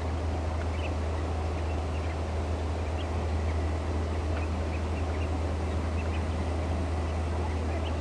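Scattered short, faint bird calls over a steady low rumble.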